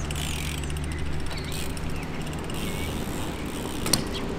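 BMX bike rolling on a concrete skatepark flat, with one sharp knock near the end, over a low steady hum that fades out about halfway through.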